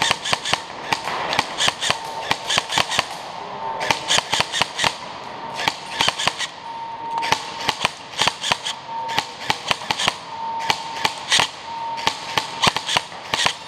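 Airsoft rifle firing in quick strings of shots, about half a dozen groups of rapid sharp pops with short pauses between them.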